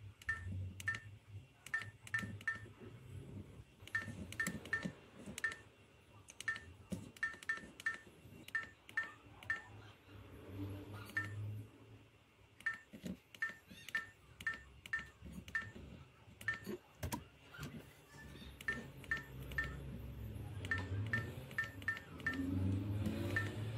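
Short high electronic key beeps from an E-ACE G07 dash cam with radar detector, one for each button press, coming singly and in quick runs of two to four as its settings menu is scrolled through. Each beep comes with a light click of the button.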